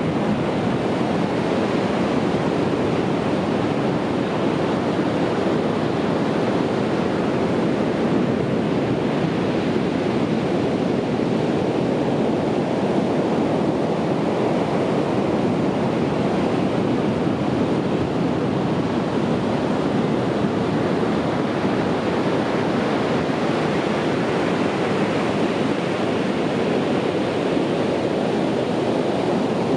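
Sea surf washing on a beach: a steady, unbroken rush of waves with no distinct single breakers standing out.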